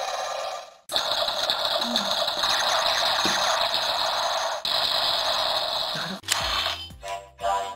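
DX Zenkaiju Gear toy sound effect: a steady grinding, whirring mechanical noise in three stretches, broken by short gaps about a second and about four and a half seconds in. About six seconds in, electronic music with a beat starts.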